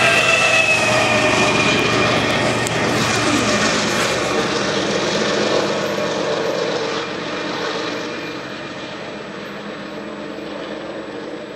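BNSF diesel locomotive at the rear of a loaded coal train passing by, its engine drone and whine dropping a little in pitch as it goes past, then fading steadily as the train moves away.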